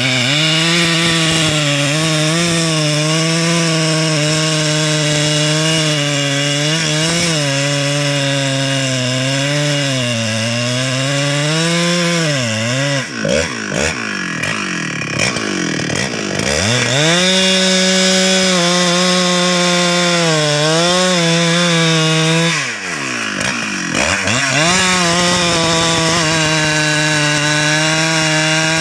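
Husqvarna 394XP two-stroke chainsaw running at high revs while it cuts into the base of a standing klumpit tree trunk. The engine note sags under load and twice drops away and climbs back, about halfway through and again about two-thirds in.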